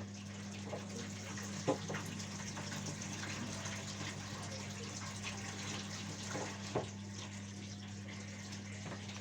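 Washing machine filling with water: a steady rush of water into the drum over a low hum, with two short knocks about two seconds in and again near the seven-second mark.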